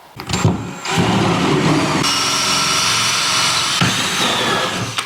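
Power drill turning a 3/4-inch spade bit, boring into wood: a short burst, then a steady run from about a second in until just before the end.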